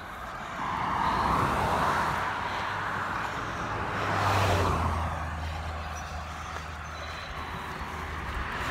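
Cars passing on the road close by, their tyre noise swelling and fading: one going by in the first couple of seconds and a louder one about four and a half seconds in, followed by a low engine hum for several seconds.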